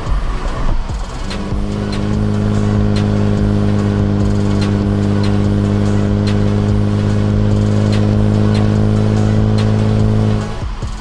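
Kia Stinger GT2's 3.3-litre twin-turbo V6 through an MBRP cat-back exhaust, heard from outside the car, holding a steady, even drone at constant engine speed. The drone sets in about a second in and cuts off suddenly near the end, over background music with a regular beat.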